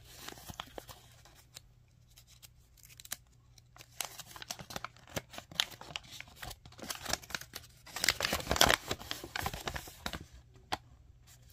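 Thin paper instruction leaflet being unfolded and handled: scattered rustles and crinkles, with a denser flurry of paper rustling about eight seconds in.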